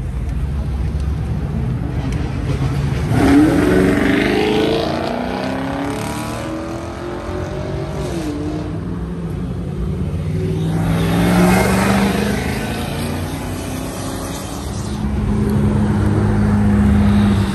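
Supercars accelerating hard away one after another, their engines revving up: one sharp pull about three seconds in, another louder pass around eleven seconds, then an engine running steadily near the end.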